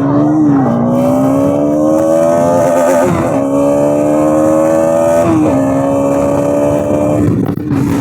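Bajaj Pulsar NS200's single-cylinder engine on its stock exhaust, accelerating hard under way. The pitch climbs steadily in each gear and drops sharply at each of about three upshifts, then levels off near the end.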